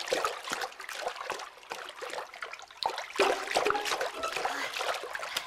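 Water splashing and sloshing as swimmers move through a pool, in irregular splashes that grow louder about three seconds in.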